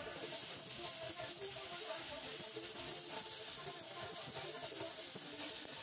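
Gas welding torch flame hissing steadily as it melts filler rod into an aluminium crankcase, with quiet background music underneath.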